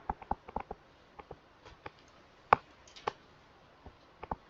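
Irregular light clicks and taps, with one sharper click about two and a half seconds in and another just after three seconds.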